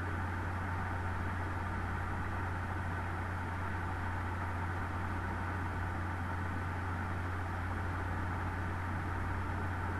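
Steady background hum with an even hiss, unchanging throughout: the room and microphone noise of a desk recording.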